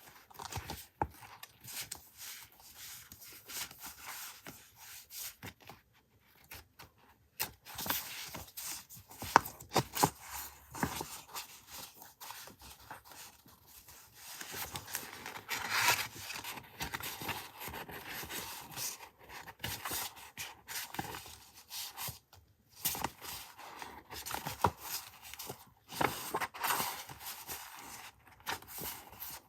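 Paper being handled for collage journaling: irregular rustling and rubbing of paper sheets, with scattered small taps and clicks.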